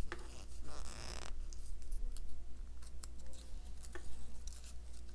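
Light rustling and small clicks of a thick Canson Mi-Teintes paper quilling strip being handled in the fingers and on a slotted quilling tool, with a longer scratchy rustle about a second in.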